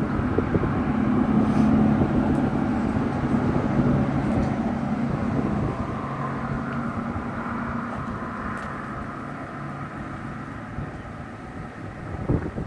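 Honeybees buzzing around an open hive: a steady, fairly loud hum that eases off somewhat in the second half.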